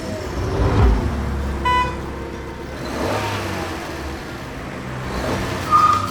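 A motor vehicle engine running with a steady low rumble, and a short beep about two seconds in.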